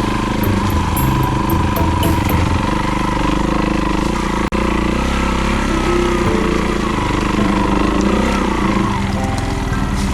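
A vehicle engine running steadily, with a brief dropout about four and a half seconds in.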